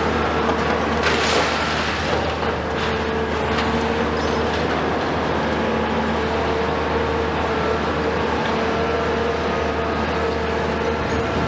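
A CAT 374F long-reach demolition excavator's Cat C15 diesel engine running steadily under load with a steady whine, while its crusher jaw works the concrete floors. A few short crunches and knocks of breaking concrete come about a second in and again around three seconds in.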